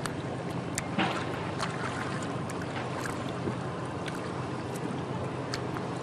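Steady low rushing noise and a faint low hum from the passing Delta Queen steam sternwheeler, with a few light clicks scattered through.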